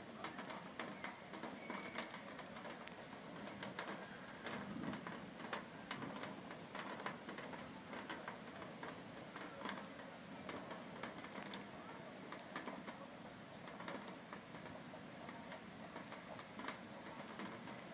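Hailstorm: a steady hiss of falling hail and rain, studded with many sharp ticks of hailstones striking leaves and the ground.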